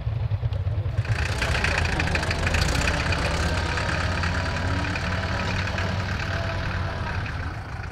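Tractor engine running steadily with a low, even throb. About a second in, a broad hiss and rattle joins it and stays to the end.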